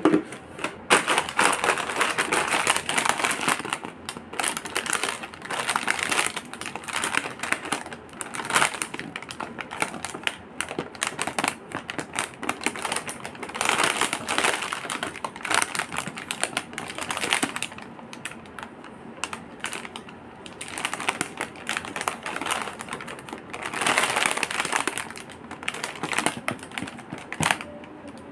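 Crinkly metallised plastic snack packets being handled and squeezed, crackling and rustling in repeated bursts.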